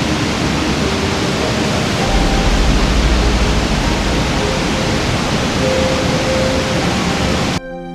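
Waterfall: a loud, steady rush of falling water, with a deeper rumble swelling for about a second and a half about two seconds in. It cuts off abruptly near the end.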